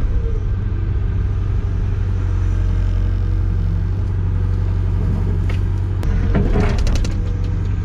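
Caterpillar 205LC hydraulic excavator's diesel engine running steadily under work. A short burst of clanking comes about six and a half seconds in, with a single knock a second before it.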